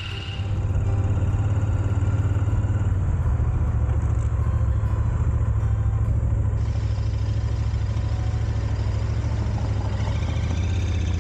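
Royal Enfield motorcycle engine running steadily under way, a low, even exhaust throb that comes up about half a second in.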